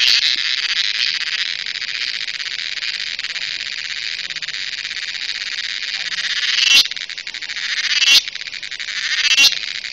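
Cricket (Malayalam cheeveed) calling close up with a continuous shrill buzz. It holds steady for several seconds, then turns into a run of swells that build and cut off sharply, about one every second and a half.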